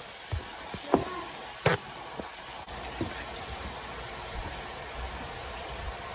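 Steak and vegetables sizzling steadily in a frying pan, with a few light knocks of kitchen things being handled in the first three seconds.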